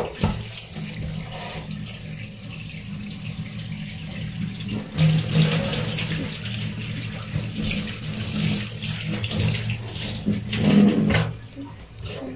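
Tap water running and splashing into a stainless steel sink while a steel wool scrubber is rinsed and rubbed under the stream. The flow stops near the end.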